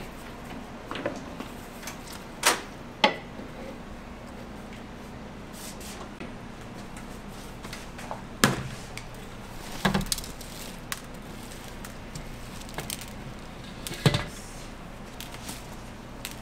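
Kitchen equipment in a waffle shop: a handful of sharp clacks and knocks at uneven intervals over a steady low hum.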